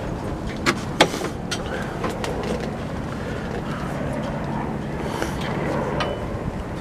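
A steady low motor hum, with two sharp clicks about a second in.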